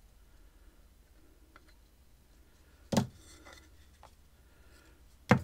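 3D-printed plastic mold pieces being pulled apart and handled to free a soft plastic lure: faint handling ticks and two sharp plastic knocks, about three seconds and five seconds in.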